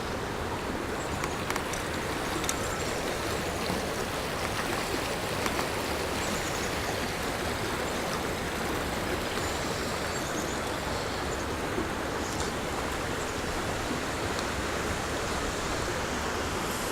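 Waterfall rushing steadily below the bridge, an even, unbroken roar of falling water.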